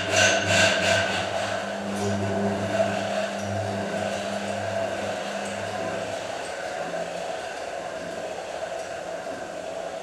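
Motor-driven kinetic sculpture built from a washing machine cabinet: its drive runs with a steady hum and whir as the cabinet tilts and turns on its post. A quick cluster of knocks comes in the first second.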